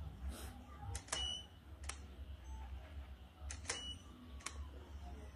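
Camera shutter clicking a few times at irregular intervals during a photo shoot, some clicks followed by a short high beep, over a faint low hum.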